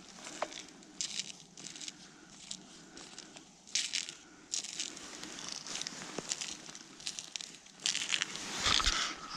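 Crinkly rustling and crunching handling noises in short irregular bursts, with a few sharp clicks, loudest near the end.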